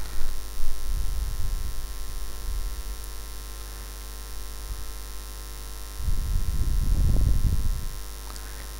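A steady electrical-sounding hum of several even tones, broken by low rumbles about a second in and a louder one from about six to eight seconds.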